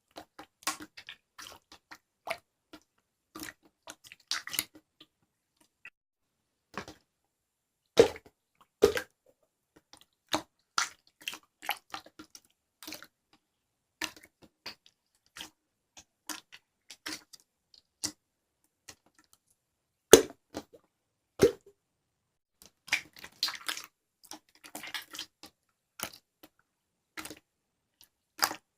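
Irregular small clicks, taps and crackles with silent gaps between them, and a few louder knocks among them.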